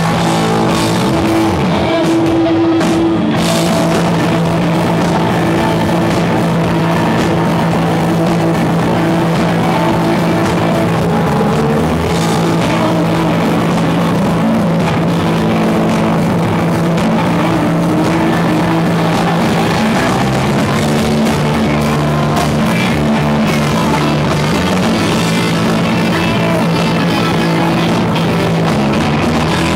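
Live rock band playing an instrumental passage with no singing: electric guitars over a drum kit, loud and continuous.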